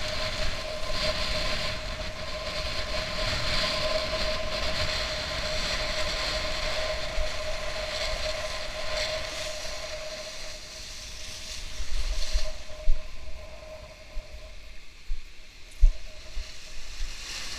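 Wind and sea water rushing over an action camera's microphone in the surf, with a steady humming tone underneath. After about twelve seconds the rush drops away and a few sharp knocks come as the shallow wash moves the camera at the water's edge.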